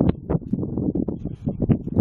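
Canadian Pacific rail train cars rolling slowly along the track, a low rumble with irregular knocking from the wheels and loaded cars, mixed with wind buffeting the microphone.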